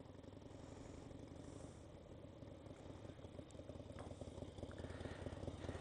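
Harley-Davidson V-twin motorcycle engine running at low speed, its rhythmic exhaust pulse growing steadily louder as the bike rides closer.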